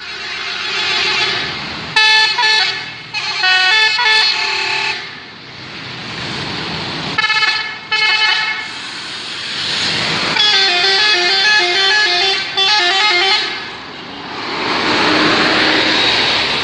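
Telolet multi-tone bus horn playing short melodic phrases in three bursts of stepping notes, the last burst warbling up and down. A rushing noise of the vehicle fills the gaps between the phrases.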